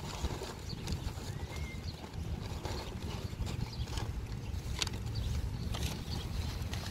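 Wind buffeting the microphone as a steady low rumble, with a few faint clicks and short high chirps.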